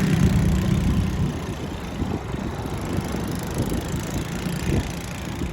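Apollo Blazer 9 125cc ATV's single-cylinder engine running as it is ridden, strong and steady for about the first second, then fainter and rougher. It runs as it should after its revival.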